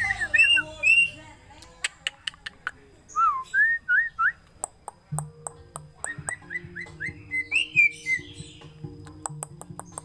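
Black-winged myna (Javan white starling) calling in its cage: three quick runs of short whistled notes that slide up and down, with sharp clicks scattered between them.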